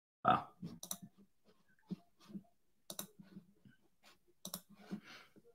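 Irregularly spaced clicks from a computer mouse, a dozen or so light clicks spread across a few seconds.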